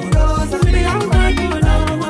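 Afrobeat-style song playing as background music, with a deep kick drum about two beats a second under pitched instruments.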